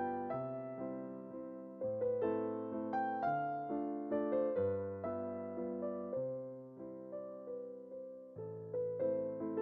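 Background music: a gentle piano melody with notes that strike and fade, over a slow, changing bass line.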